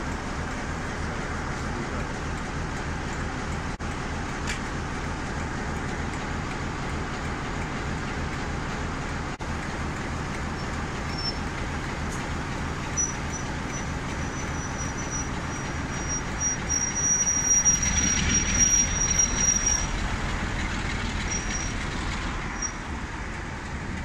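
British Rail Class 47 diesel locomotive, Sulzer twelve-cylinder engine running as it moves slowly along a tight run-round loop. A thin high squeal from its running gear comes and goes over several seconds past the middle, with the engine sound rising at the same time.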